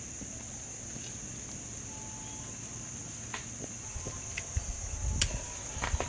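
Steady high-pitched drone of insects in the background, with scattered sharp clicks and knocks. Heavier low thumps and rumbling come in about four and a half seconds in.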